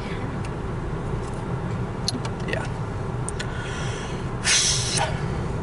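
Steady low rumble of a car's engine running, heard from inside the cabin, with a few faint clicks about two seconds in and a short, loud hiss about four and a half seconds in.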